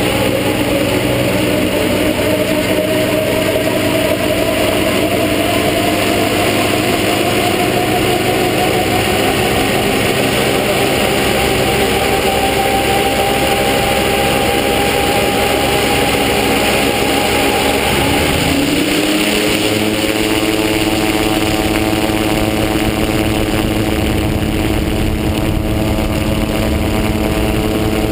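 MTO Sport (MT-03) gyrocopter's engine and pusher propeller running on the ground before takeoff. The note slowly rises in pitch for most of the time, then about two-thirds of the way in it changes abruptly to a steadier, lower note.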